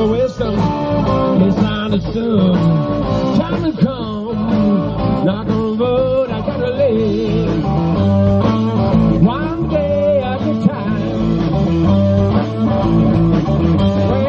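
Live blues band playing: electric guitar over electric bass, with bending melodic lines, and a man singing into the microphone near the end.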